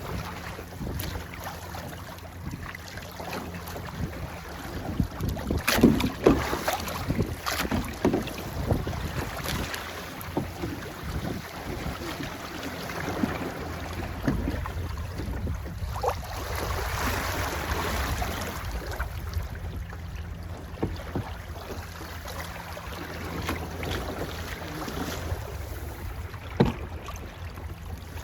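Wind buffeting the microphone over water rushing along a sailing boat's hull, with a cluster of sharp knocks about six to eight seconds in and one more near the end.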